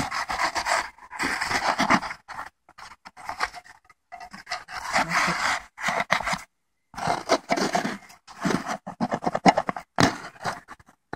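A blade sawing and tearing through the old, perished paper cone of a Wurlitzer Magnavox loudspeaker, cutting the cone away around its rim. It comes as runs of rasping, scratchy strokes, each a second or two long, with short pauses between.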